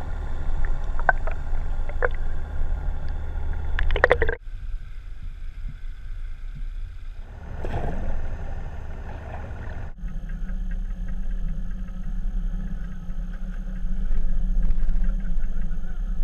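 Muffled, steady low drone of a boat's motor with water noise, heard through an underwater camera housing. The sound changes abruptly twice as clips are cut together. A few sharp clicks come in the first four seconds, and a brief splash-like swell comes near the middle.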